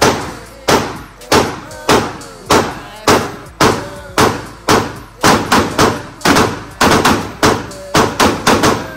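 Glock 43X pistol fired in a long string of about twenty shots, each crack echoing in the indoor range. The shots come roughly every half second, with a quicker run of shots about five seconds in.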